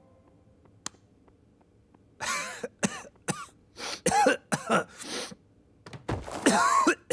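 A voice actor, as a cartoon cat, coughing and hacking in a string of about eight short, strained, throaty bursts. They start about two seconds in, and the longest comes near the end.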